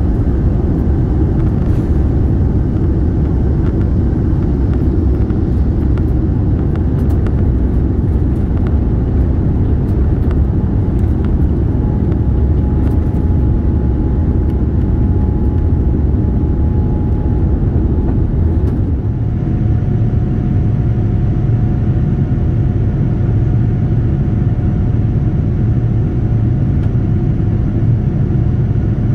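Boeing 787-9's engines heard from inside the cabin as a steady, loud rumble with a faint steady whine. About nineteen seconds in, the rumble changes and the whine drops slightly in pitch.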